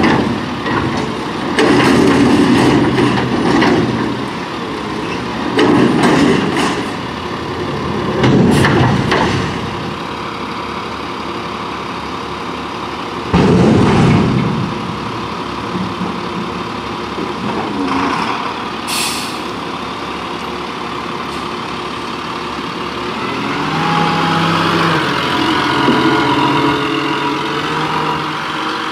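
1999 Crane Carrier garbage truck running parked while its Impac CSL side-loader body works hydraulically: several loud surges in the first fifteen seconds as the hopper lid comes down, and a short air hiss about nineteen seconds in. The engine speeds up near the end.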